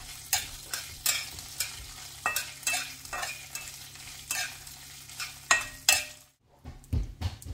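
Metal spatula scraping and tapping against a kadhai as dried red chillies, chana dal, urad dal and curry leaves are stirred and fried in a little oil, with a faint sizzle. The scrapes come irregularly, about two a second, with a brief gap about six seconds in.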